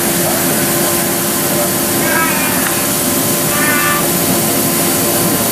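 CNC machine running: a loud, steady hiss with an even hum beneath it, and two short high squeaks about two and three and a half seconds in.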